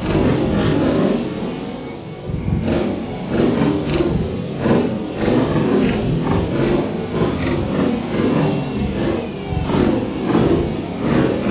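Fireworks bursting: an irregular run of bangs and crackles, one or two a second, over a continuous low rumble.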